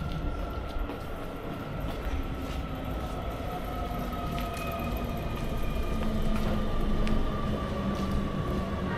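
Electric train running by, its motor whine slowly falling in pitch over a steady rumble, with occasional clicks; it grows a little louder toward the end.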